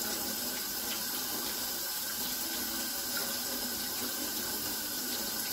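Kitchen faucet running steadily into a stainless steel sink, the stream splashing over hands rinsing under it.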